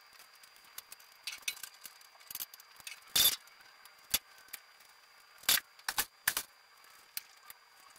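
Scattered metallic clicks and clanks of someone working around a car on a two-post lift, with one sharp clank about three seconds in and a quick cluster of three later on.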